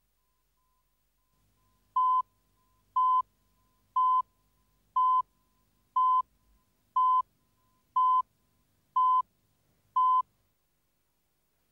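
Video countdown leader beeps: a short, high, steady electronic beep once a second, nine in all, starting about two seconds in.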